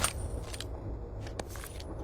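A few short, light clicks and taps of PC hardware being handled during assembly, the first the loudest, over a low steady rumble.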